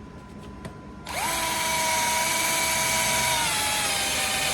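Power drill starting up about a second in and drilling a hole through a metal bracket plate, a steady motor whine. Its pitch sags a little past the middle as the bit loads up.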